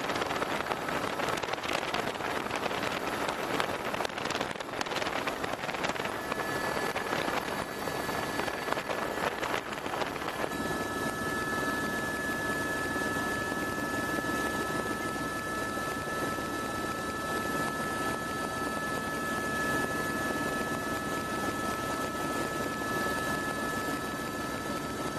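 Helicopter in flight heard from on board: steady engine and rotor noise with wind rush. About ten seconds in, the crackling buffeting gives way to a smoother sound with a steady high whine.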